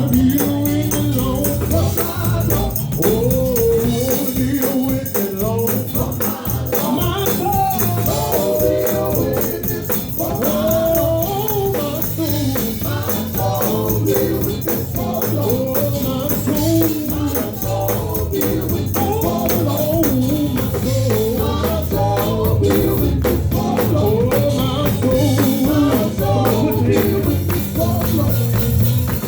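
Live gospel music: a group singing over bass and drums, with a tambourine shaking throughout.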